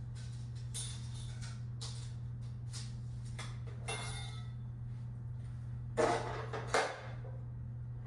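Metal parts clinking and clanking as they are handled and set down. There are a few light, ringing clinks in the first half, then two louder clanks about six and seven seconds in, over a steady low hum.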